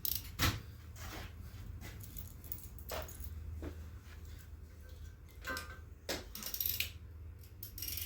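Scattered metallic clinks and rattles of a ratchet and a 13/16 spark plug socket being handled and fitted together, a few sharp clicks standing out, over a low steady hum.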